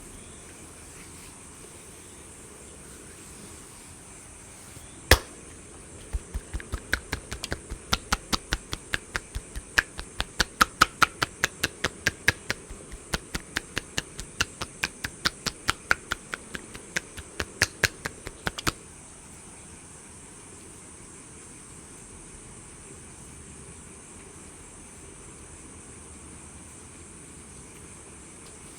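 Hands striking the body in a fast percussive massage: one sharp crack, then about a second later a run of sharp slaps, three to four a second, that stops abruptly after about twelve seconds. A steady hiss of rain runs underneath.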